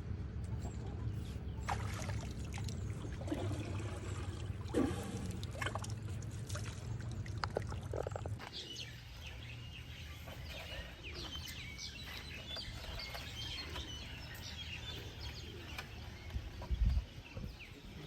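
Birds chirping with many short calls, most thickly in the second half. A steady low rumble underlies the first half and stops about eight seconds in, where the background changes.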